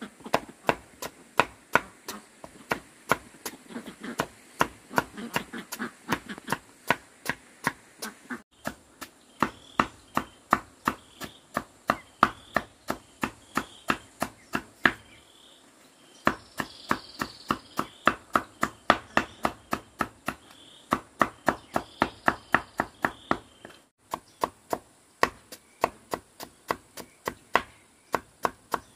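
Steady chopping with a blade, sharp even strokes about three a second, in stretches broken by short gaps. Faint high chirps sound in the middle.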